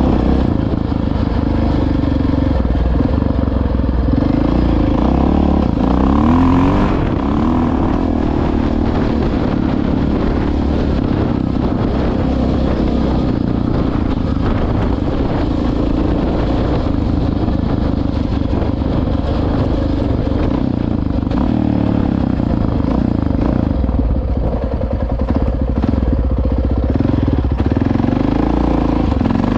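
Honda XR650R single-cylinder four-stroke dirt bike engine running steadily under way. Around six seconds in, the revs climb briefly.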